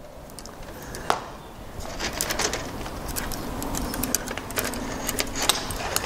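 Light metallic clicks and taps of small stainless steel wire balustrade fittings handled by hand: the pin of a fork bottle screw and a wire thimble being fitted together. One sharper click comes about a second in, then a run of quick clicks from about two seconds on.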